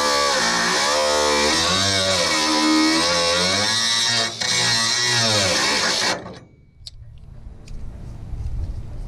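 DeWalt 20-volt brushless 4.5-inch cordless angle grinder cutting through rusted sheet-steel truck bed floor. Its whine sags in pitch as the disc bogs in the cut and recovers, several times. About six seconds in it winds down and stops.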